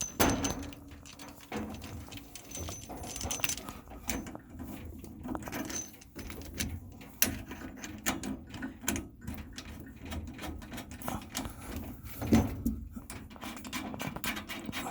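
Handling noise from a flush hose being fitted and hand-tightened onto a tankless water heater's service valve port: scattered clicks, knocks and rattles of the fitting against metal.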